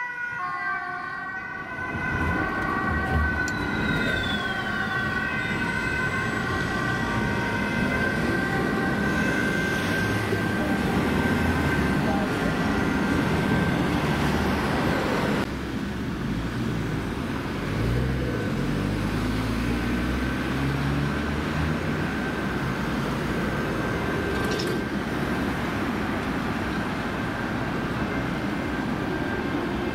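Ambulance siren sounding over steady road traffic, heard at a distance after the ambulance has passed. A vehicle passes close by about 18 seconds in.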